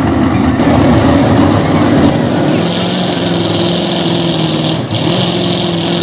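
V8 hot rod pulling tractor's engine running hard at the end of a pull, then, after a cut about two and a half seconds in, a pulling tractor's engine running steadily with a high hiss over it.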